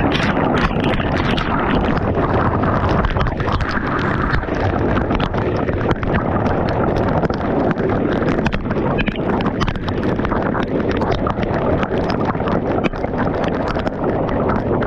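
Hailstones, pea to quarter size, pelting the ground and the camera in a dense, continuous clatter of impacts, with strong wind buffeting the microphone.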